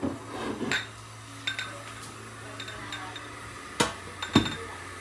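Crockery and cutlery clinking: a handful of separate sharp knocks and chinks of cups and spoons on a kitchen counter, over a low steady hum that stops about three and a half seconds in.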